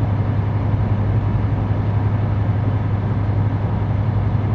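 Steady low drone inside a semi-truck's cab: the diesel engine and road noise while driving slowly through snow.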